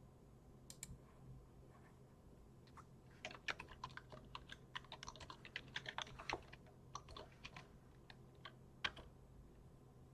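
Typing on a computer keyboard: quick, irregular keystrokes, densest in the middle, with a few scattered key presses before and after and one louder keystroke near the end.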